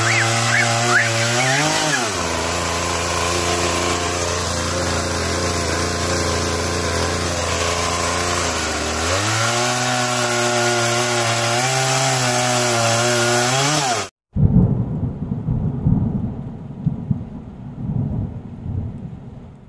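Chainsaw cutting into a wooden stump: its motor pitch drops as the chain bites into the wood about two seconds in, holds low under load, and climbs again as the load eases, before it cuts off abruptly. Then a low thunder-like rumble that fades out.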